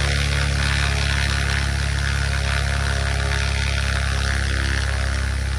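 UL Power engine of a Tarragon light aircraft running steadily on the ground, driving its DUC Cobra constant-speed propeller during a ground test run.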